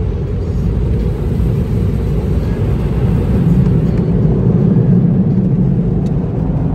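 Car wash air-dryer blowers blasting the vehicle, heard from inside the cab as a loud, steady low rumble that swells about halfway through.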